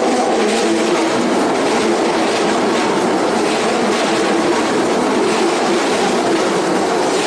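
Keikyu Line train passing over the level crossing: steady, loud wheel-on-rail running noise with the clatter of wheels over the rails.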